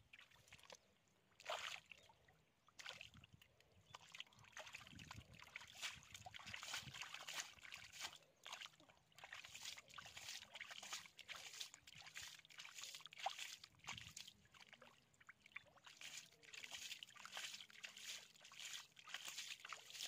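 Quiet, irregular sloshing and splashing of hands groping through shallow muddy water and mud, feeling for fish.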